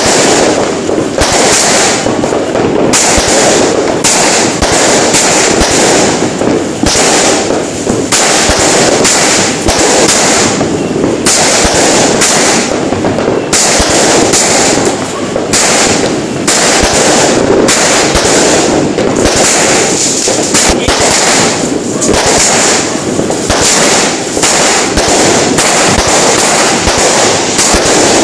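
Fireworks bursting in a dense, continuous barrage of crackling bangs, many a second, with no let-up.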